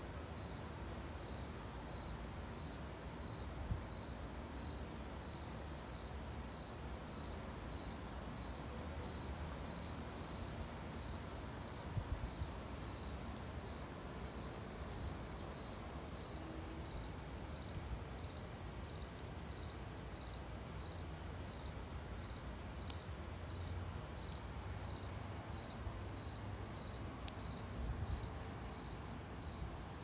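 Crickets chirping in a steady, even rhythm of roughly two high chirps a second, with a few faint pops from a wood campfire.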